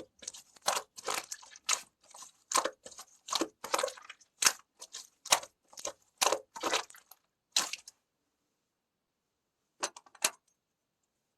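Heart-shaped clay pieces being crushed and broken, a quick run of sharp crunches and cracks that stops about eight seconds in, followed by two more near the end.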